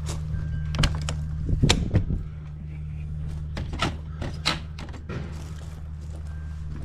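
Camper trailer door being opened and the steps climbed: a series of knocks and clunks, the loudest in the first two seconds, over a steady low hum.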